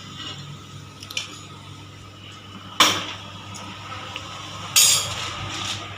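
Metal kitchen utensils clinking against cookware: a faint click about a second in, then two sharp clinks about three and five seconds in.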